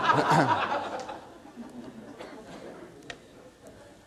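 Audience in a hall laughing at a joke, loudest at first and dying away over about two seconds.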